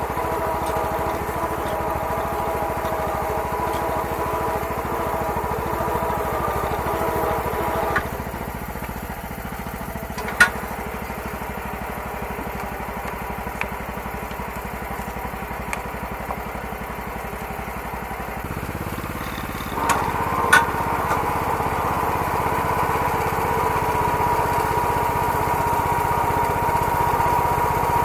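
Small engine of a homemade garden tractor running steadily, with a few sharp knocks in the middle. About two-thirds of the way in the engine gets louder and stays up as the tractor pulls a two-bottom plow through the soil.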